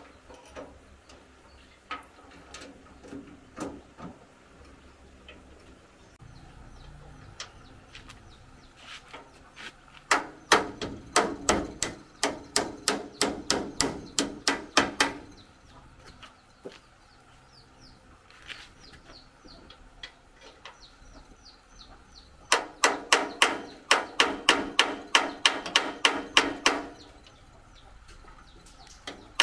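Quick runs of sharp taps on the metal of a rice grain separator as it is worked on, about four a second. One run comes about a third of the way in and lasts around five seconds, and another near the end lasts a few seconds more. Lighter scattered knocks and clicks come between them.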